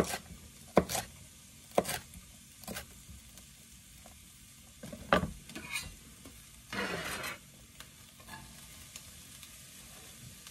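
Chef's knife chopping mini bell peppers on a cutting board, four sharp strokes in the first three seconds, then a couple of knocks about five seconds in. About seven seconds in, a short burst of sizzling as the chopped peppers hit the hot pan with the onions, which go on frying with a faint sizzle.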